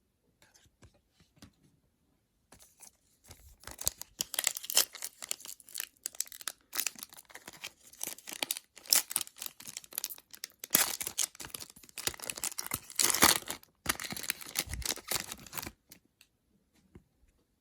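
A trading-card pack's wrapper being torn open and crinkled: a long run of crackly rips and rustles that starts a couple of seconds in and stops shortly before the end.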